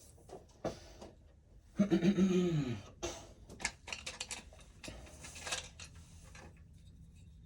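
Small clicks, scrapes and rustles of electrical wiring being handled and worked inside a breaker panel. About two seconds in comes a brief wordless voice sound falling in pitch, the loudest thing here.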